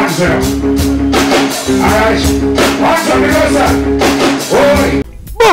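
Live band music with a steady beat, sustained keyboard chords and a singing voice; it cuts off abruptly about five seconds in.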